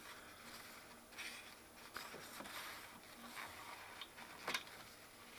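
Faint rubbing of a tissue wiping a grimy instrument display window, with a few small scrapes and taps, the sharpest about four and a half seconds in.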